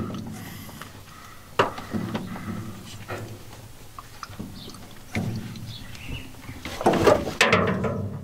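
Two wrenches knocking and turning on a brass PEX fitting, a few sharp metal knocks with the loudest cluster near the end, while water from the plumbing being drained splashes and drips.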